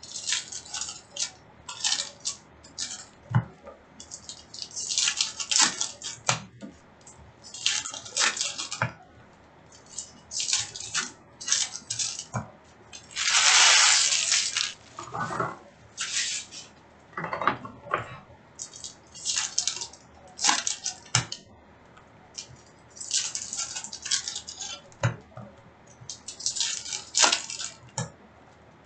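Hockey card packs being opened and cards handled: irregular crinkling and rustling of foil pack wrappers and cards being shuffled, with one longer, louder rustle about halfway through.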